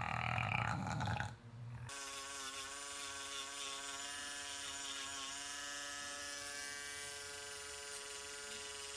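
A bulldog's noisy sleeping breaths for the first second or so, then, from about two seconds in, an electric pet nail grinder running with a steady whine as a French bulldog's claws are filed.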